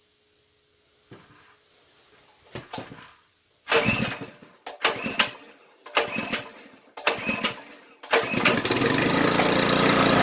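Powerfist 208cc single-cylinder Honda-clone small engine being pull-started: after a few faint knocks, several recoil pulls come in short loud bursts from about four seconds in, then the engine catches about eight seconds in and keeps running steadily. It is the new engine's first start, taking about ten pulls, which the owner puts down to it needing to prime.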